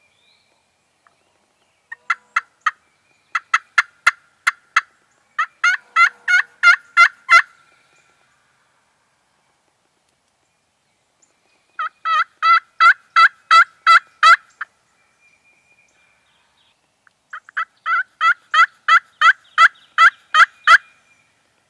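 Hen-turkey yelping on a hunter's hand-worked turkey call, made to draw in gobblers. The yelps come in three loud runs of evenly spaced notes, about three to four a second, with pauses of a few seconds between runs.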